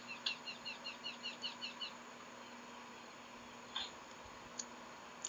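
A small animal chirping: a quick run of about ten short, high chirps over the first two seconds, each a brief falling note. A faint steady hum sits underneath.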